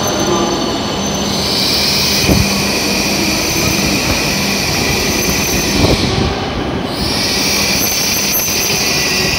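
E7 series Shinkansen train rolling slowly into the platform and braking toward a stop, with a steady hum and a high-pitched squeal that fades briefly about six seconds in and then returns.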